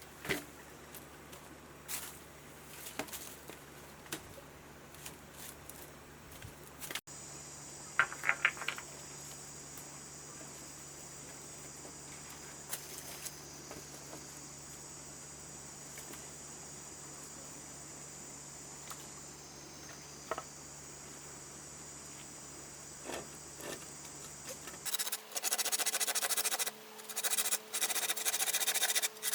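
Insects buzzing steadily in a high, even drone, with a few scattered clicks and taps. Near the end a loud, rough scraping starts, repeated in strokes.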